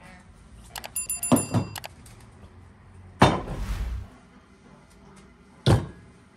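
Enamel basin of raw lamb legs being set down and handled: clicks and a metallic clank with a brief ring about a second in, then two heavy thuds as the meat is shifted against the basin.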